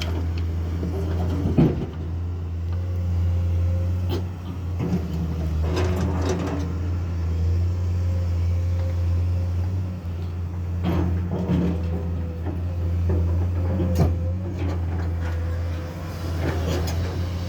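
Diesel engine of a Komatsu excavator running steadily under load, with sharp metallic clanks and knocks every few seconds.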